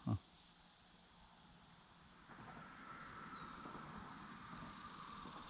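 Insects trilling in a steady, high-pitched chorus, with a fainter, lower buzz joining about two seconds in.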